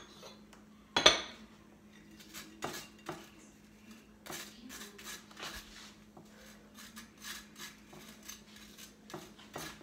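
Butter knife scraping butter onto a slice of toast in many short strokes, with a sharp knock of the knife about a second in.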